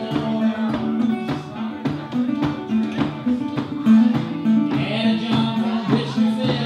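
Live song: a guitar strummed in a steady rhythm, with a man singing into a microphone.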